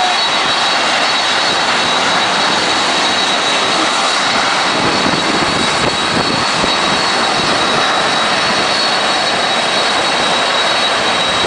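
Boeing 747 jet engines running loud and steady, a continuous rushing noise with a constant high whine.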